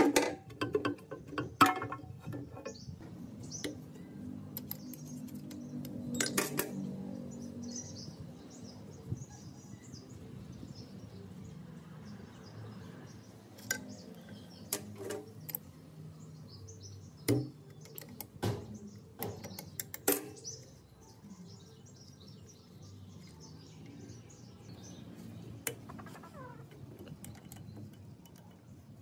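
Scattered sharp clicks and taps of hand-tool work, loudest near the start and again about two-thirds of the way in, over a low steady hum and birds chirping.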